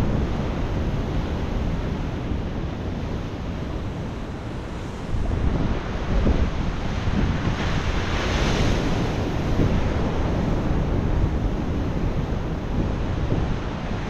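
Ocean surf washing in, one wave surging about five seconds in with its hiss swelling a few seconds later, and wind buffeting the microphone.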